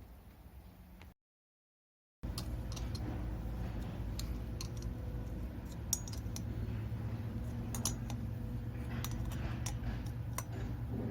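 Scattered small metallic clicks and clinks, like tools or small metal parts being handled, over a steady low hum. They follow a second of dead silence about a second in.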